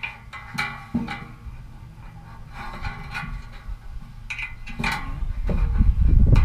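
Small metal clicks and clinks of a hitch pin, washers and spring clip being handled and fitted into a receiver hitch. Near the end a loud low rumble builds up and covers them.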